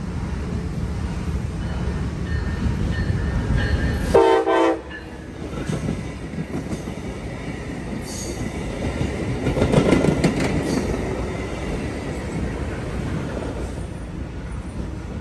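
Brightline passenger train passing close by: a short, loud air-horn blast about four seconds in that cuts off suddenly, then the rumble and wheel clatter of the Siemens Venture coaches going by, loudest about ten seconds in.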